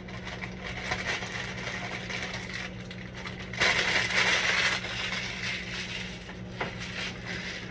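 Clear plastic bag of shredded coleslaw mix crinkling and rustling as it is squeezed and shaken out into a pan, with a louder burst of crinkling about halfway through.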